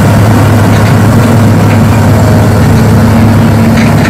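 Single-drum road roller's diesel engine running steadily with a heavy low hum as the machine rolls slowly.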